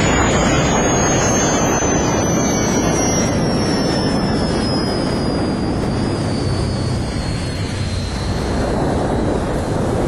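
Jet engine of a jet-powered land-speed car running at speed: a loud, steady rush of noise with a thin high whine that falls slowly in pitch as it goes.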